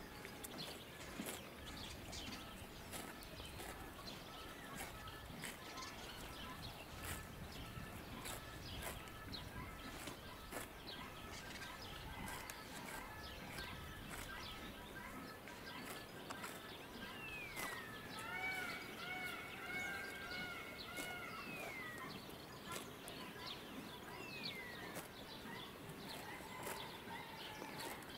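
Faint outdoor ambience with a bird singing, a run of repeated arching notes with falling glides about two-thirds of the way through. Scattered faint clicks.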